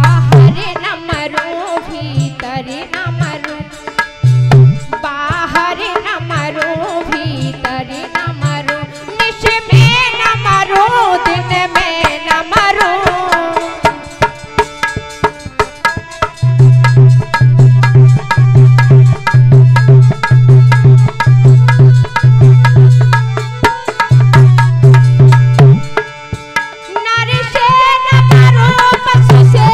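A woman singing a devotional song to live accompaniment, with a hand drum beating low strokes; about halfway through the drumming becomes a loud, even beat of about two strokes a second.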